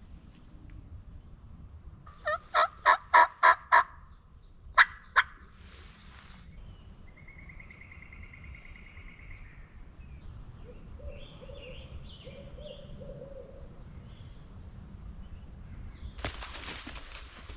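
Wild turkey calling in the woods: about six loud, evenly spaced notes in quick succession, then two more a second later. A fainter songbird trill and a few chirps follow, and a rustling noise starts near the end.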